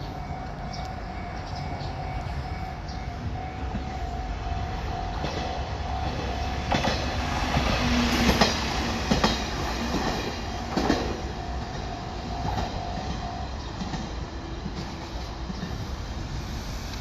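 Japanese level crossing warning bell ringing over and over while an Amagi Railway diesel railcar passes, its wheels clacking over the rail joints and crossing between about 7 and 11 seconds in. The bell stops about 13 seconds in as the crossing clears, leaving the railcar's rumble fading away.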